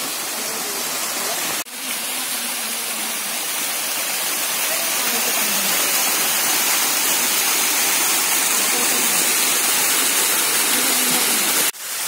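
Small rock waterfall running at a low, cold-season flow: a steady rush of water falling over rock ledges into a pool. The sound cuts out for an instant a little under two seconds in.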